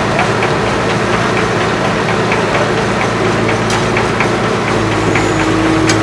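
Case 770 EX backhoe loader's diesel engine running steadily with a fast clatter. Its note changes about five seconds in as the backhoe arm is worked, and two sharp clicks stand out.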